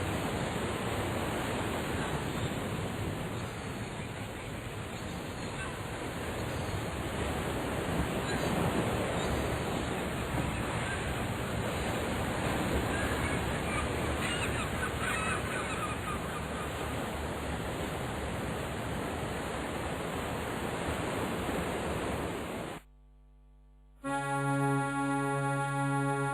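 A sound-effect bed of ocean surf with birds calling over it, which cuts off suddenly about 23 seconds in; after a second of silence, keyboard music with piano or organ begins.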